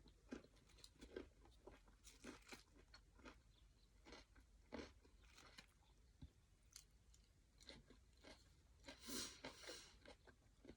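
Close-up chewing of a vermicelli noodle papaya salad with cucumber and lettuce: soft irregular crunches and mouth clicks, with a longer run of crunching about nine seconds in.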